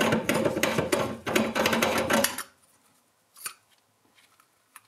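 Brass slip nut of a sink tailpiece being spun off the basket strainer's threaded tail by hand: a fast metallic rattling of threads that stops about two and a half seconds in. A faint click or two follows.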